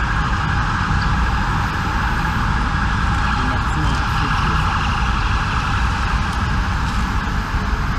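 Many emergency-vehicle sirens in the distance overlapping into one steady din, over a low rumble of city traffic.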